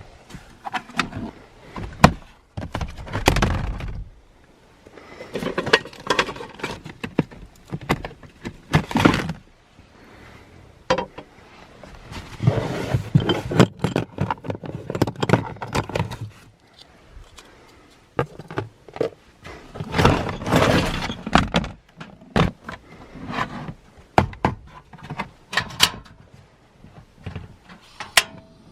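Rummaging and moving gear about in the back of an SUV: repeated thunks and sharp knocks, with bursts of rustling and scraping as things are shifted.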